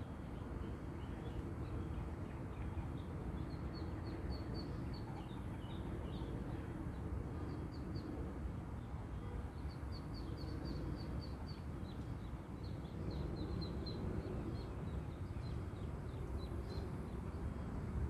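Ducklings peeping: runs of short, high calls that come in bursts of several a second, with pauses in between. A steady low rumble sits underneath.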